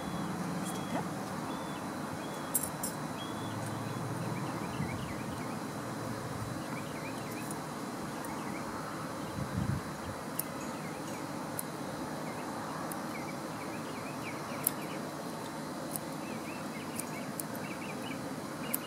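Grooming scissors trimming a small dog's coat, a few faint snips scattered through, over steady outdoor background noise with small birds chirping now and then.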